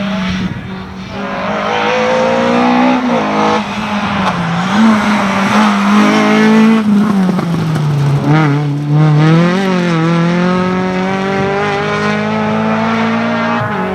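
A rally car's engine running hard at high revs. Its pitch climbs and drops several times as it shifts gears and lifts off the throttle, and it wavers up and down near the middle.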